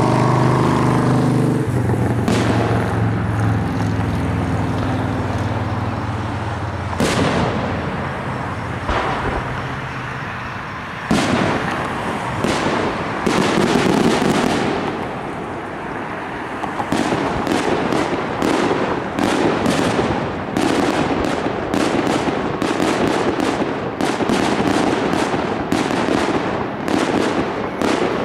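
Fireworks display: aerial shells bursting with sharp bangs, a few seconds apart at first, then from about two-thirds through a fast run of many bangs, several a second. A low steady hum underneath stops about seven seconds in.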